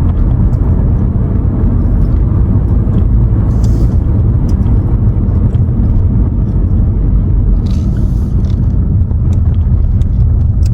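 Steady low rumble of a car driving, heard from inside the cabin: road and engine noise at a constant speed.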